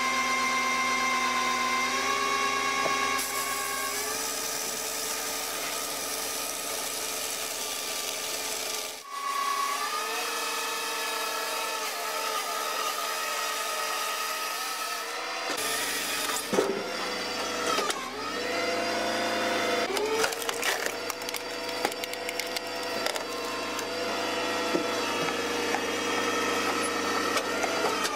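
Firewood processors at work: a steady machine drone with a saw bar cutting through logs. In the second half, many sharp cracks and knocks come as the wood is split.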